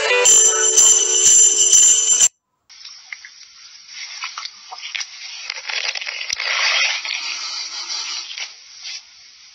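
Music with held high and low notes cuts off abruptly about two seconds in; after a brief gap, soft uneven rustling and scraping noises follow.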